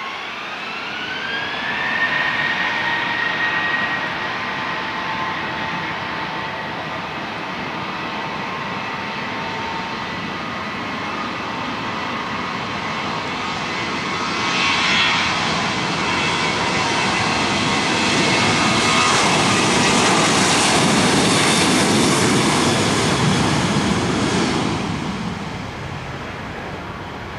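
Southwest Boeing 737 jet engines spooling up for takeoff: a whine rises in pitch over the first two seconds and then holds. The jet noise of the takeoff roll builds, is loudest about two-thirds of the way through, and fades near the end as the airliner moves away.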